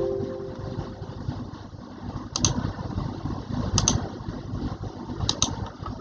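Steady low machine rumble with a pair of sharp clicks repeating about every second and a half; a ringing tone dies away in the first second.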